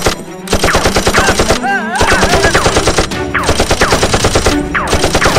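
Machine-gun sound effect: rapid automatic gunfire at about ten shots a second, in several long bursts broken by short pauses.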